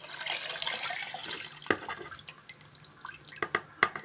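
Coconut milk pouring and splashing through a plastic strainer into a bowl of liquid batter, tapering off after about two seconds. A few sharp knocks follow, one about halfway and several close together near the end.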